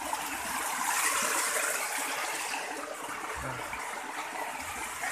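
Floodwater running fast over rocks and down a flooded channel: a steady rush of water, a little louder about a second in.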